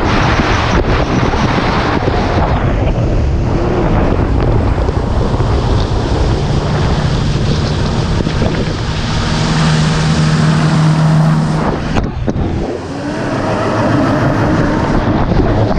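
Turbocharged four-stroke engine of a Honda AquaTrax F-12X jet ski running under way, heavily buried in wind rushing over the microphone and water noise. A steady engine note comes through from about halfway in. It breaks off sharply for a moment a few seconds before the end, then the rushing noise builds again.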